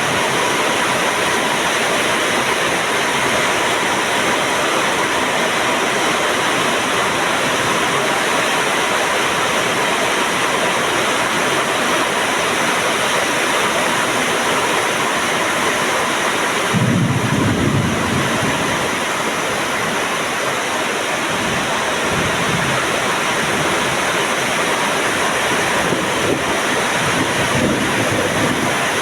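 Heavy rain pouring down in a loud, steady rush. About 17 seconds in there is a brief low rumble, then a fainter one a few seconds later.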